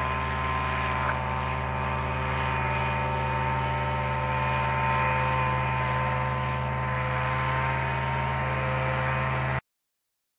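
EOS150 paramotor's two-stroke engine and propeller running at a steady pitch as the powered paraglider flies. The sound cuts off abruptly near the end.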